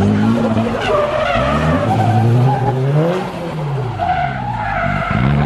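Drift car sliding sideways through a corner, its tyres squealing while the engine revs rise and fall repeatedly as the throttle is worked.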